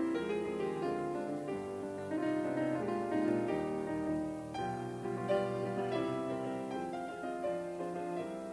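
Background instrumental piano music, a flowing run of notes at a steady level.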